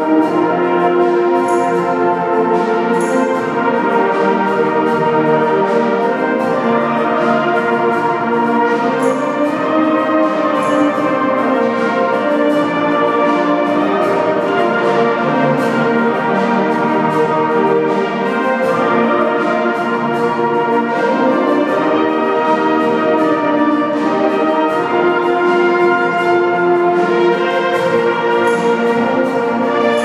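A wind band of brass and woodwinds playing a piece together under a conductor, the music going on without a break.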